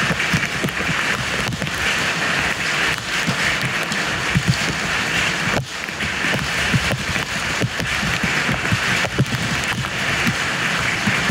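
Steady rain falling on wet paving, a continuous hiss with a dense patter of drops.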